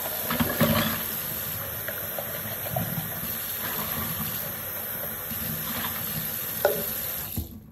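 Tap water running steadily into a sink, with a couple of light knocks, then shut off about seven and a half seconds in.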